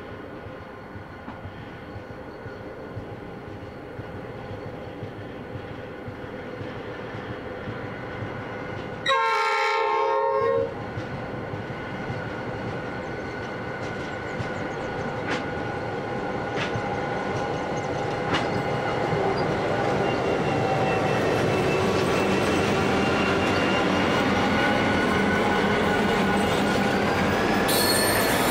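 Two Pacific National 81 class diesel locomotives hauling an empty grain train approach, their engine noise growing steadily louder. About nine seconds in the horn sounds once, for about a second and a half. Near the end, as the locomotives come alongside and pass through the turnout into the loop, the wheels squeal.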